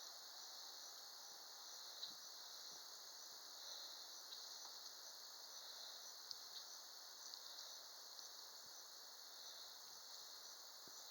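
Faint, steady, high-pitched insect chorus that swells and fades slightly, with a few faint ticks.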